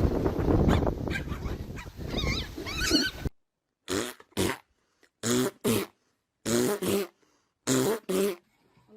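A dog whining over scuffling noise, then, after a sudden cut, four pairs of short barks about a second apart.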